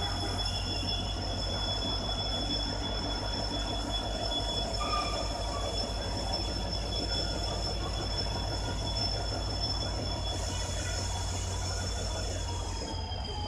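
WDP4D diesel locomotive running past slowly, a steady low engine rumble under a steady high whine. The whine drops in pitch near the end.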